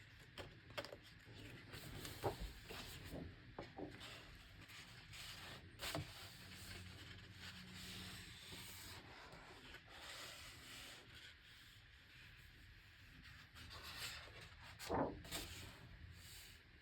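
Large, heavy paper pages of an oversized hardcover art book rubbing and sliding as they are handled and turned, with a few soft taps and a louder page rustle near the end.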